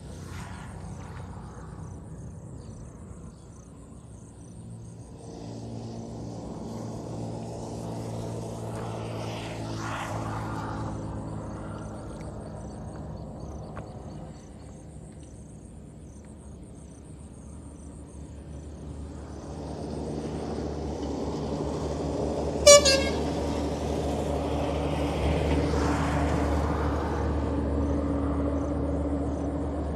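Motor vehicle engines passing on a nearby road: one rises and fades in the first half, and a louder one builds in the second half. A short, sharp horn toot sounds about three-quarters of the way through.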